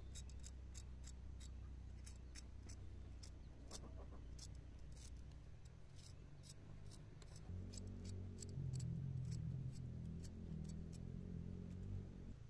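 A small knife cutting into a red chili pepper pod and scraping the seeds out, making a run of sharp little clicks and crackles, about three a second. A low rumble sits underneath and grows louder about halfway through.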